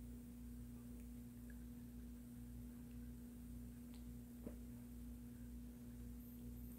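A faint, steady low hum held at one pitch, with a faint tick about four and a half seconds in.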